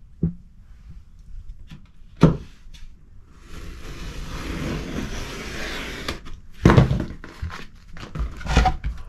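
Utility knife blade drawn along a plywood straightedge, slicing through a rubber drawer liner mat: a steady scraping rasp lasting about two and a half seconds. A sharp knock comes about two seconds in, and a louder thud about seven seconds in as the board and knife are handled.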